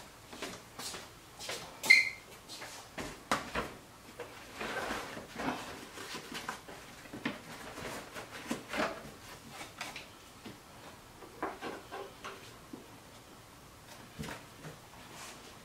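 Scattered clicks, taps and knocks of hands and tools working on car trim and hardware, with one sharp metallic clink about two seconds in.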